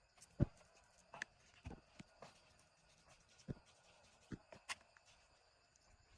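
A frog giving short, cough-like calls at irregular intervals, about eight in all, the loudest about half a second in and another strong one near the end.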